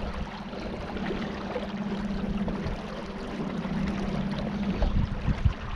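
A small boat's motor running at a steady hum under way, with water rushing past and wind buffeting the microphone toward the end.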